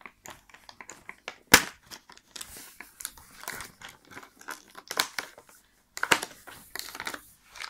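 Cardboard door of a Kinder advent calendar being pressed in and torn open by hand, with irregular crinkling and crackling. There is one sharp snap about a second and a half in.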